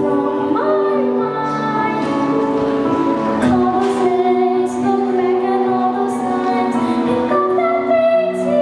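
A young girl singing into a handheld microphone over instrumental accompaniment, holding long sustained notes.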